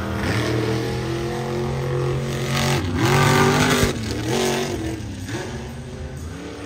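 Monster truck engine revving hard as the truck drives the dirt track. Its pitch rises and falls, dips briefly about three seconds in, then surges to its loudest and eases off toward the end.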